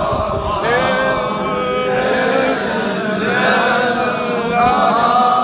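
Men's voices chanting a drawn-out melody, with long held notes that rise and fall.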